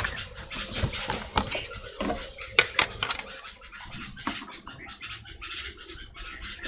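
Pencil scratching on drawing paper in short strokes, with a few sharp clicks about one and a half to three seconds in as the plastic set squares are knocked and lifted off the sheet.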